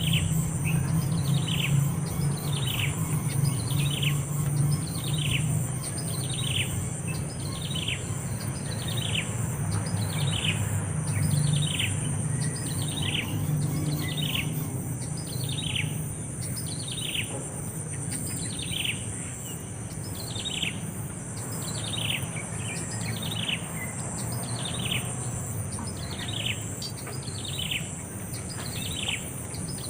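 A bird calling one short downward-sweeping note over and over, a little under once a second, at a steady pace, with a steady high buzz and a low rumble underneath.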